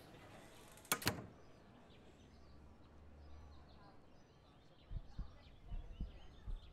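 Quiet room tone with a sharp double click about a second in. From about five seconds in come soft, irregular low thuds.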